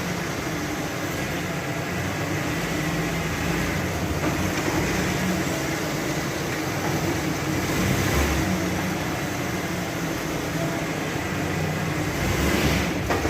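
1998 Ford Ranger XLT running with a steady engine and road hum, a little louder near the end.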